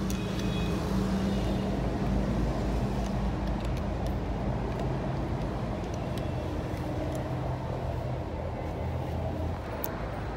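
Steady low mechanical hum of a running motor, with a few faint clicks over it.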